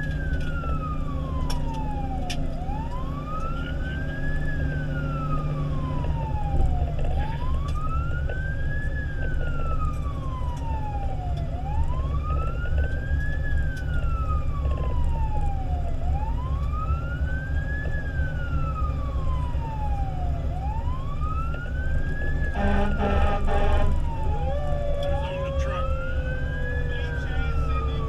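Fire engine siren wailing, sweeping up and down about once every four and a half seconds over the truck's low engine and road rumble. About 23 s in there is a short horn blast of about a second, and near the end a second, lower tone slowly falls in pitch.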